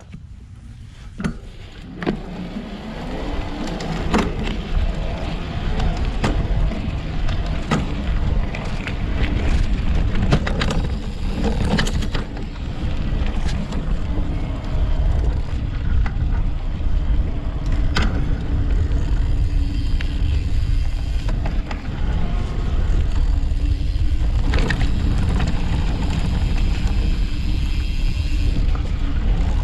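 Electric mountain bike ridden fast on a dirt trail under full pedal assist: a heavy rumble of knobby tyres and wind that builds over the first few seconds, with scattered sharp knocks and rattles as the bike goes over bumps.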